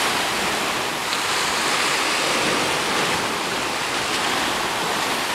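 Ocean surf churning and washing against rocks in a narrow channel, a steady rush of foaming white water.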